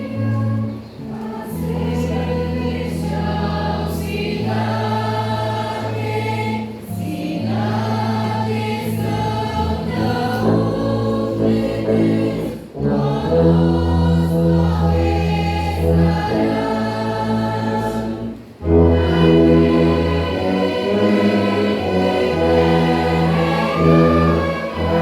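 Hymn sung by a congregation with instrumental accompaniment, a tuba holding strong, sustained low bass notes under the chords. The phrases pause briefly about every six seconds.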